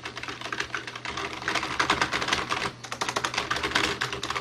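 Fast typing on a computer keyboard: a dense run of key clicks that gets louder about a second in, with a brief pause near three seconds. A steady low hum sits underneath.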